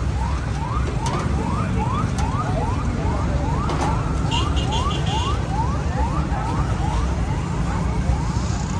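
An electronic alarm or siren chirping in quick rising sweeps, about three a second without a break, over a steady low rumble.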